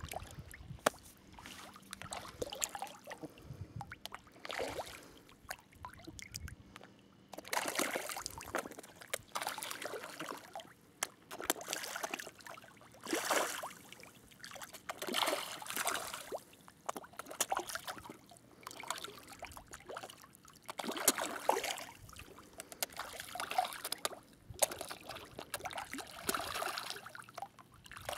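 Water splashing in irregular bursts as hardhead sea catfish strike at bread floating on the surface, sparse at first and busier from about seven seconds in.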